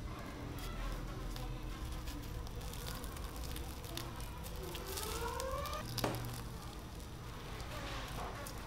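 A soft, sugar-dusted yeast potato donut is lifted off parchment paper and torn apart by hand, with light crackling and rustling of sugar and paper over a low hum. A short rising whine comes about five seconds in, and a sharp tick about six seconds in.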